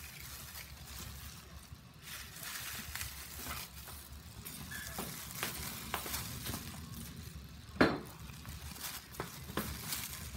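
Plastic bag and bubble-wrap packaging crinkling and rustling as it is handled, with scattered small crackles and one louder knock about three-quarters of the way through.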